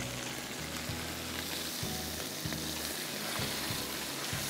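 Whole piece of beef undercut searing in hot oil in a pan: a steady sizzle as it browns.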